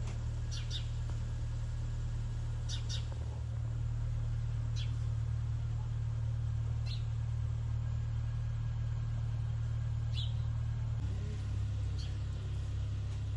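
Low steady rumble of a car, with a small bird chirping briefly every couple of seconds. The rumble changes pitch about eleven seconds in.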